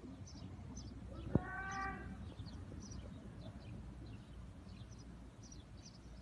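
Small birds chirping in many quick, high, short notes, over a low background rumble. About a second and a half in there is a sharp click, then one short pitched call.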